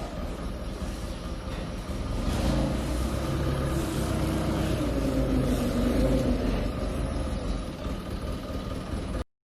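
Steady low machinery rumble with a motor tone that slides down in pitch about halfway through; it cuts off suddenly near the end.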